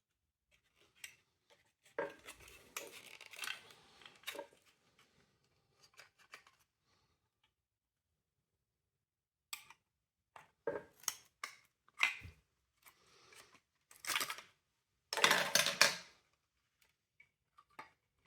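Plastic parts of a window vacuum cleaner being handled and taken apart: scattered clicks and scraping, with a burst of scraping about two seconds in and a longer, louder scrape and rattle near the end.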